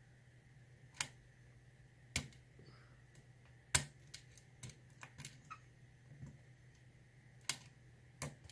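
Lock pick clicking and tapping against the pins of a six-pin Corbin Russwin pin tumbler cylinder during single pin picking. About nine sharp, irregular clicks, the loudest a little under four seconds in.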